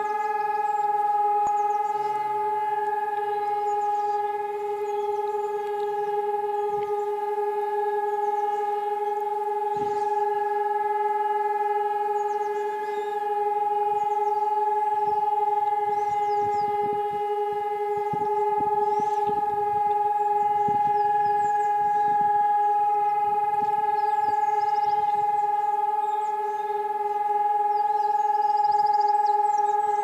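A steady, unwavering siren-like tone at one fixed pitch with overtones, held without a break. It is an unidentified mystery sound that the listener took for a siren.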